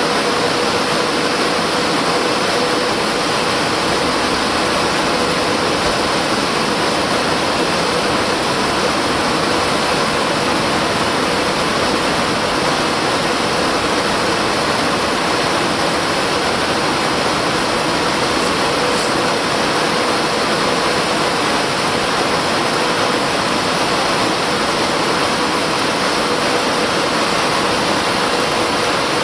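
Airbus A319 airliner on approach to land: a steady rushing noise of jet engines and airflow, unchanging throughout, with a faint steady hum.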